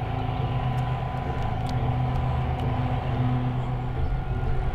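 Steady low engine rumble with a faint steady hum above it, from the radio-controlled scale models at the water's edge.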